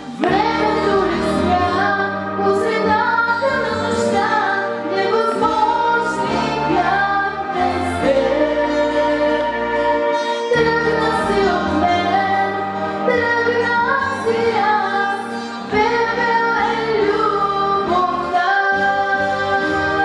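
A girl sings a song solo into a handheld microphone over instrumental accompaniment, with her melody rising and falling in long held notes.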